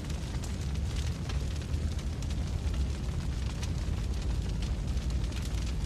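Large fire burning: a steady low rumble with constant dense crackling.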